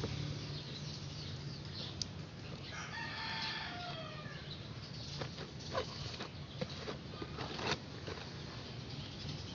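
A rooster crows once, a long call that falls in pitch at its end, about two and a half seconds in. A few sharp clicks and taps follow over a steady low hum.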